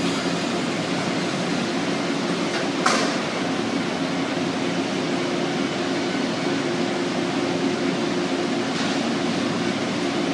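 Steady hum of an electric train at a station, with low steady tones under a broad hiss. A sharp clank about three seconds in and a fainter one near nine seconds.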